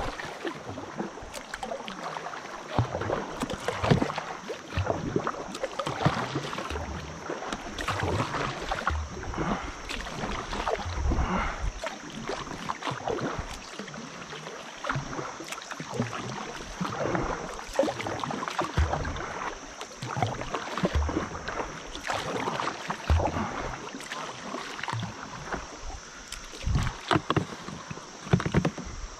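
Kayak paddle strokes splashing in river water as a kayak is paddled along steadily, with water washing past the hull.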